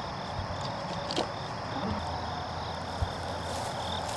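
Field insects, crickets, chirping in a steady high-pitched pulsing rhythm, with a couple of soft knocks.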